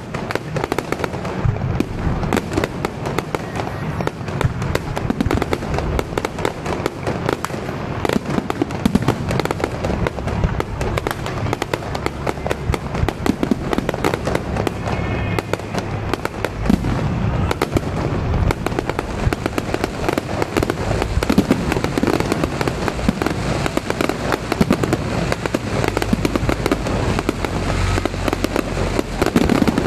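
Aerial fireworks bursting continuously, a dense run of cracks and bangs over a low rumble.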